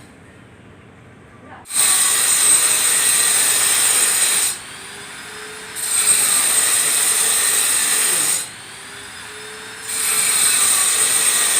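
Angle grinder with a ceramic-cutting disc grinding through ceramic tile: a loud, harsh, high grinding starts about two seconds in. It twice eases to the lighter whine of the disc spinning free, its pitch rising as it speeds up, and bites in again each time.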